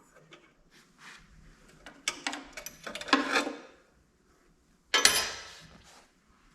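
Metal hand tools and small metal parts clinking and clattering as they are handled, with a busy run of clatter about two to three seconds in and one sharp metallic clank about five seconds in that rings briefly.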